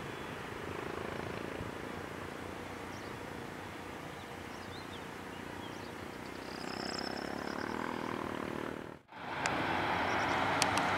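Steady distant airport apron noise. About nine seconds in, after a cut, it gives way to the louder steady drone of an ATR turboprop's engines and propellers running on the runway.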